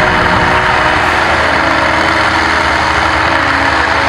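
Dubbed-in sound effect of a heavy construction machine's engine running steadily and loudly, with a strong rushing noise over the engine note.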